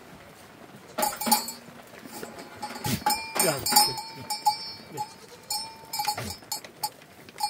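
Goats crowding around a hand to feed, with a bell jingling over and over as they jostle, several knocks, and goat calls that fall in pitch about three seconds in.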